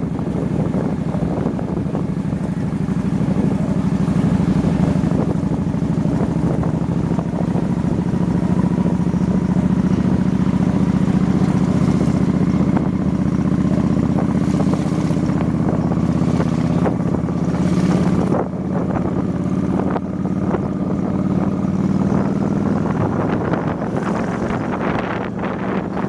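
Motorbike engine running at a steady cruise, with wind buffeting the microphone; the engine eases off briefly about two-thirds of the way through.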